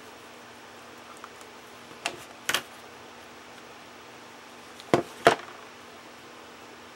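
Plastic hot glue gun being picked up from and set back down on a hard tabletop: two pairs of short knocks, about two seconds in and again about five seconds in, the second pair louder, over a faint steady hum.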